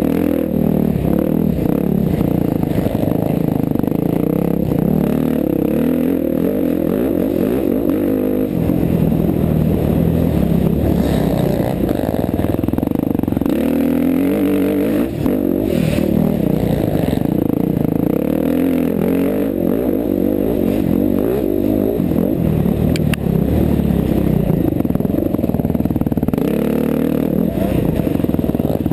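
KTM 350 XC-F dirt bike's single-cylinder four-stroke engine running hard, its pitch rising and falling over and over as the throttle is worked through the gears.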